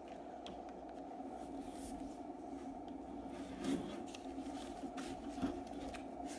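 Flat cardboard mailer being handled on a tabletop: light scraping and rubbing, with a few soft knocks and clicks over a steady low hum.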